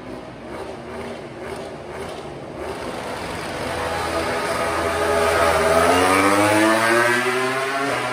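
MotoGP racing motorcycle approaching and passing at speed, its engine note growing steadily louder to a peak about six seconds in, then starting to fade as it moves away.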